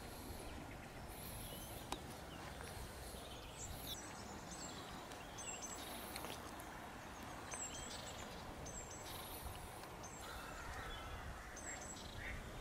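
Small birds chirping and singing in short, high repeated phrases over a steady low outdoor background noise, with a run of lower calls starting near the end.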